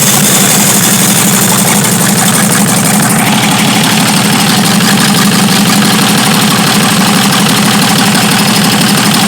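Chevrolet D60 truck's Perkins diesel engine running loud and steady, freshly started.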